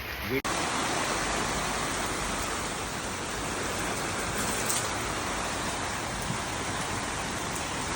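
Steady rain falling, an even hiss of rain on surfaces, with a brief cut-out about half a second in.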